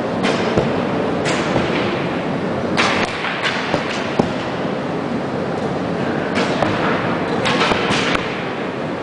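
Archers shooting bows: about ten sharp snaps of bowstrings releasing and arrows thudding into targets, spread unevenly and echoing in a large hall.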